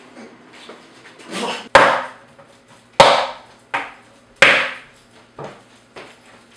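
A series of hard knocks on something wooden: three loud blows about a second and a half apart, each dying away quickly, with fainter knocks after them.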